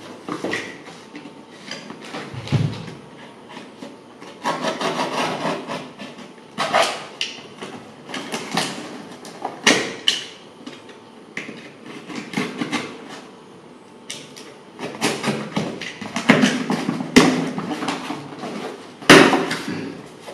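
A shipping package being cut open with a knife and unpacked by hand: irregular scraping, ripping and rustling of the packaging with scattered knocks, the sharpest one near the end.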